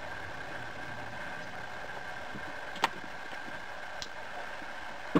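A steady mechanical hum, with one sharp click nearly three seconds in and a fainter tick about a second later.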